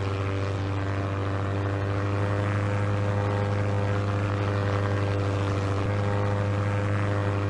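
Small propeller airplane in flight: a steady engine-and-propeller drone with a deep hum and a few held higher tones.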